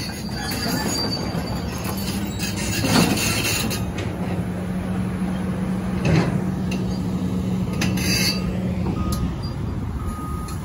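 Heavy excavators' diesel engines and hydraulics working, a steady low drone, with two sharp metallic clanks, about three and six seconds in.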